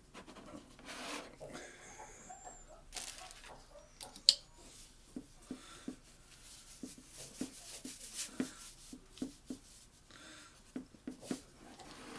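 Hands handling a camera while fitting a wrist strap to it: rustling and rubbing with a run of small soft knocks, and one sharp click about four seconds in.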